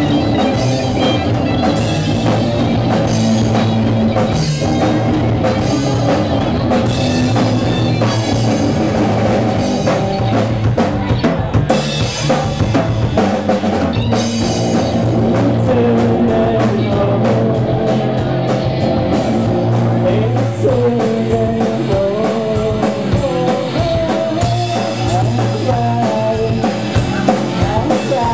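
Live rock band playing an instrumental passage: a drum kit keeps the beat under two electric guitars. A wandering melodic lead line comes in over it in the second half.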